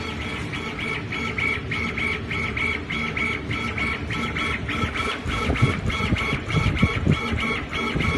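Laser cutting machine at work: its gantry motors whine in short, evenly repeated moves, about three a second, over a steady low hum. From about five seconds in, irregular low thumps and rumbling join in.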